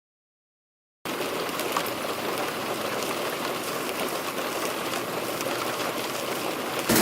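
Water rushing steadily into a washing machine, starting about a second in after dead silence. Just before the end a much louder machine sound with a fast, even rattle and a steady hum cuts in.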